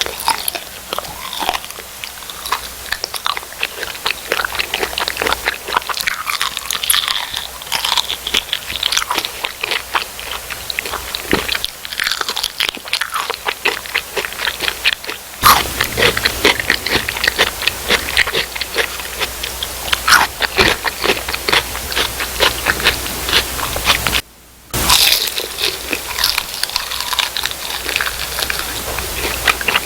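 Loud crunching as crispy fried food is bitten and chewed, in dense irregular crackles, with a brief gap about three quarters of the way through.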